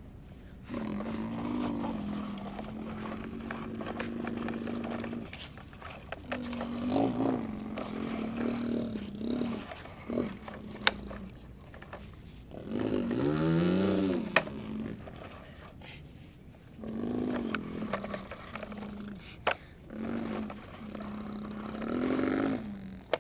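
Small electric motors of radio-controlled construction models whining in spurts. The hum starts and stops every few seconds and several times swells and glides up and down in pitch, with a few sharp clicks between.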